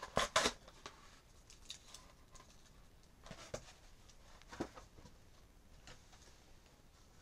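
Faint, scattered clicks and light knocks of hands handling things off camera, with a short cluster of louder clicks just after the start.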